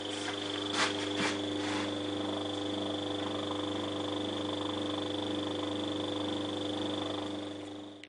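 Refrigerator compressor in a homemade air compressor running steadily, a hum with a thin high whine, pumping up pressure as the gauge needle climbs. A few light knocks sound in the first two seconds.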